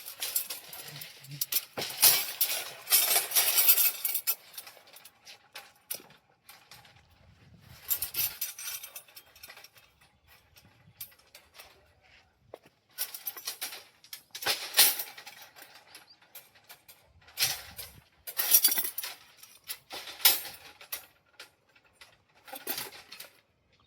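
Electric arc welding: short runs of crackling, sizzling hiss, each lasting one to two seconds, with quieter gaps between them.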